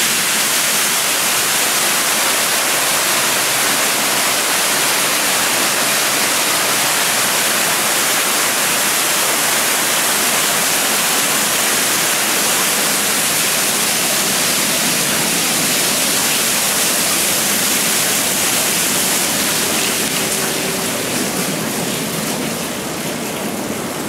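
Waterfall pouring over a rock ledge overhead in a steady, full rush of water, easing off a little near the end.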